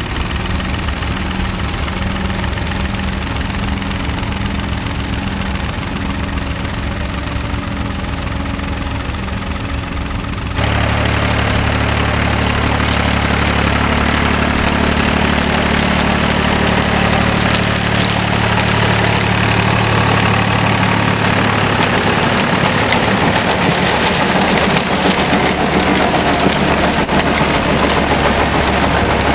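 David Brown 880 Selectamatic three-cylinder diesel tractor running steadily under load while pulling a plough. About ten seconds in, the sound switches to a louder David Brown 885 diesel driving a Howard Rotavator, its engine running over the noisy churn of the rotor through soil and maize stalks.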